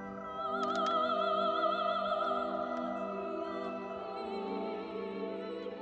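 Background classical music: an operatic voice singing a held note with wide vibrato over sustained orchestral chords.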